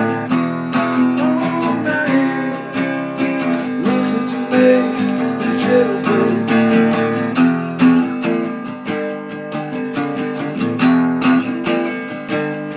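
Music: an acoustic guitar strummed in a steady rhythm, with a melody line over it that slides between notes in the first half.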